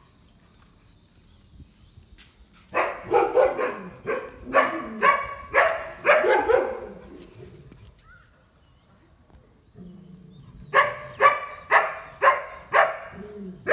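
A dog barking in two runs of short barks, about two a second: one run starts near three seconds in, and another near eleven seconds in after a pause.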